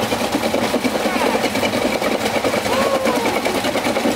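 Busy street-market bustle: many voices talking at once over the running of small engines.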